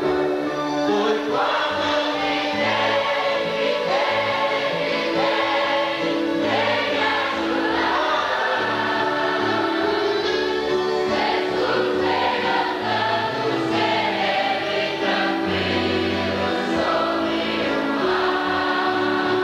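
A large congregation of mixed voices, mostly women's, singing a Portuguese hymn together.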